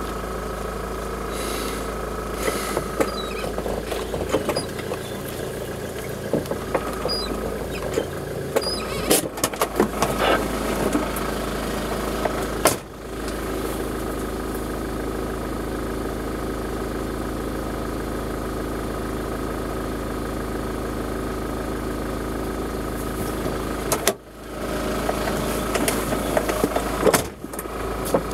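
Off-road 4x4's engine running steadily at low speed, heard from inside the cabin while it crawls down a rough dirt track, with scattered knocks and rattles about ten seconds in. The sound briefly drops away twice.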